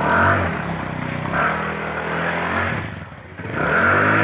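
Motor scooter engine revving, climbing and holding, then sagging and climbing again, as the scooter is driven to get it out of mud and floodwater where it has sunk.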